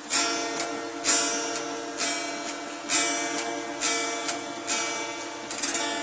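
Acoustic guitar strummed in slow, even chords, about one strum a second, each chord ringing on between strokes.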